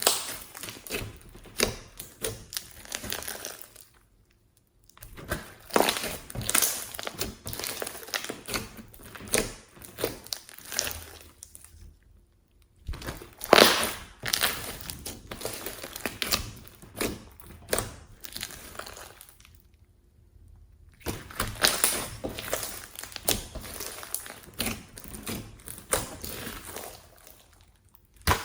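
Slime being squished, stretched and mixed by hand, giving a dense run of crackly, sticky clicks and pops, broken three times by brief silences.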